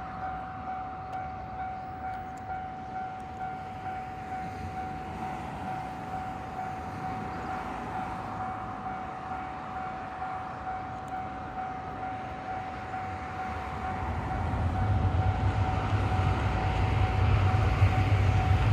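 Japanese level-crossing warning bell ringing in a steady, evenly repeating electronic clang. From about 14 seconds in, the low rumble of an approaching 381 series electric train grows louder beneath it.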